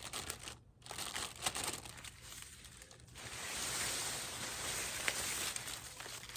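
Dry corn leaves and husks rustling and crackling as the plants are handled, with scattered crackles at first, then a denser, steady rustling from about halfway.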